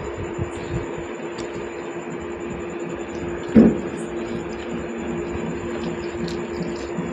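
Soft eating sounds, fingers mixing moist rice and quiet chewing, over a steady electrical hum with a constant low tone and a thin high whine. One short, louder sound comes about three and a half seconds in.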